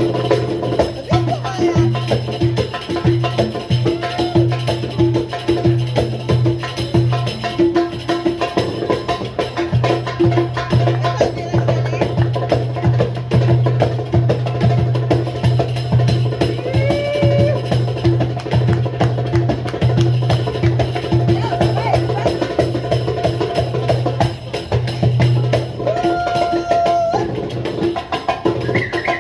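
Ethnic ensemble music played with hand percussion over a steady low drone, with a few short sliding melodic phrases on top.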